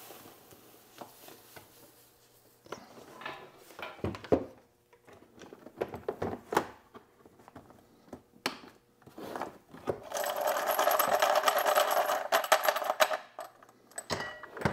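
Brass rifle cases and corn cob tumbling media in a Frankford Arsenal rotary media separator: scattered clinks and knocks as the load settles and the lid and crank go on, then about three seconds of dense rattling as the basket is cranked round, the brass tumbling while the media sifts out through the slots. A single knock near the end.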